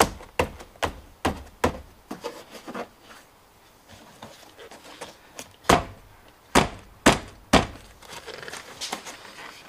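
Old rubber cargo-hatch seal being pushed by hand onto the fiberglass edge of a C5 Corvette's hatch opening, giving a run of sharp thunks about two a second. The thunks pause for a couple of seconds midway, then start again.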